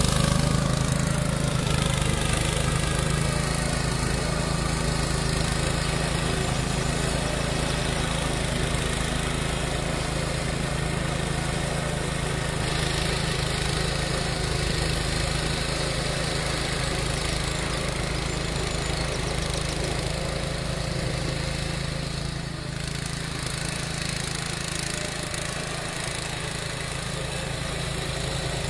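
The Loncin 352 cc single-cylinder four-stroke engine of a walk-behind two-wheel tractor runs steadily under load while its twin-rotor mulcher cuts grass. A little louder at first, it eases slightly as the machine works on.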